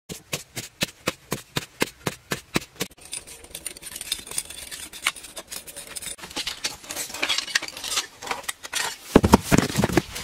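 Digging into dry, crumbly clay soil: quick, regular strikes about four a second for the first three seconds. Then a stretch of scraping and rustling, and a few heavy thumps near the end.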